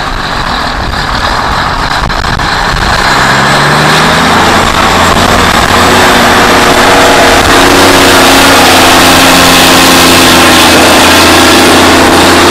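The diesel engine of a 1983 International S Line SF2670 truck working hard under heavy load as it drags a pulling sled. The engine note builds over the first few seconds, then holds loud and steady, creeping slightly up in pitch.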